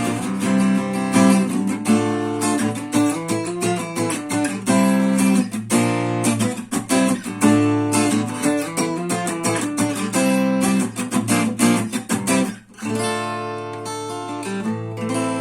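Manuel Sanchez WJ750 dreadnought acoustic guitar being played, quick picked notes and strummed chords, with a short break about twelve seconds in and then a chord left to ring out.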